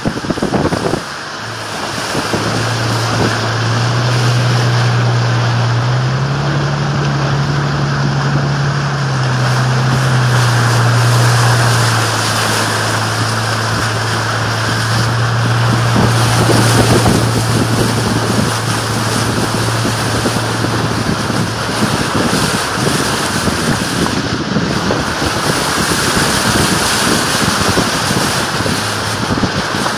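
Toyota Tacoma pickup wading through floodwater: a continuous rush and splash of muddy water thrown up along the truck's side by the tyres, with the truck's low engine hum underneath. The hum rises in pitch for a few seconds, drops back, and fades out about two-thirds of the way through.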